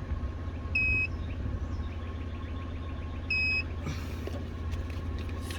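Two short, high electronic beeps, about two and a half seconds apart, over a steady low rumble.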